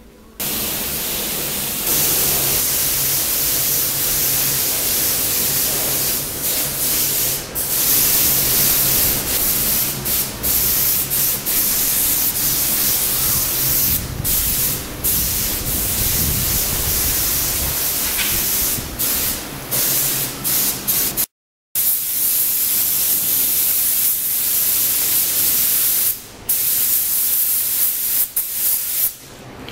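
Compressed-air paint spray gun hissing as it sprays black paint onto a lorry chassis and axle, with many short breaks where the spray stops and starts again.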